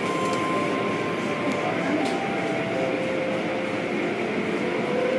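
Steady rumble and wash of an automatic car wash tunnel running, its cloth curtains and brushes working over a car, heard through the viewing-corridor windows.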